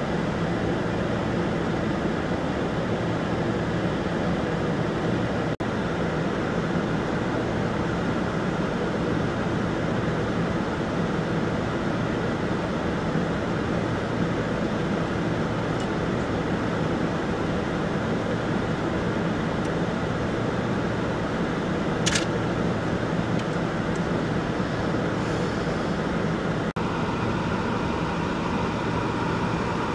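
Steady idling hum of a Kombi minibus engine. A single short, sharp click comes about three-quarters of the way through.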